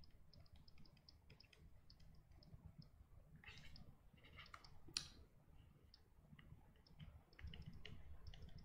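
Faint, irregular clicking and tapping of a stylus on a pen tablet while writing by hand, with one slightly louder click about five seconds in.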